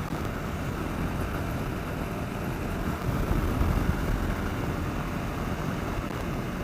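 Single-cylinder engine of a 2009 Kawasaki KLR 650 motorcycle running steadily on the road, mixed with wind rushing over the helmet-mounted microphone.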